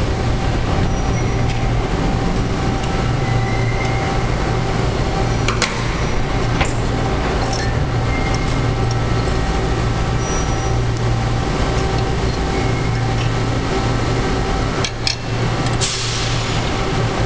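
Workshop machinery running with a steady low hum, with a few sharp metallic clicks and knocks.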